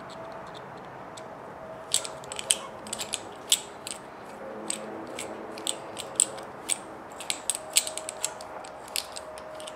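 Hex driver turning small metal screws in an RC car axle's truss plate, making irregular sharp metallic clicks about one or two a second, starting about two seconds in.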